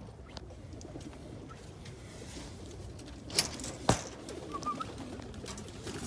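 Lahore pigeons cooing low and steadily, with two sharp knocks about half a second apart a little past halfway, the loudest sounds.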